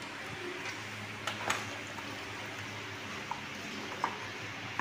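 Four short clicks of a 13 mm ring spanner on the bar nuts of a chainsaw's clutch cover as the nuts are worked loose, over a faint steady hum.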